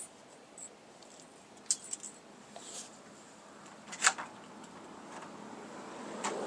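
Small metal parts and hand tools being handled: a few light clicks and taps, with one sharper click about four seconds in.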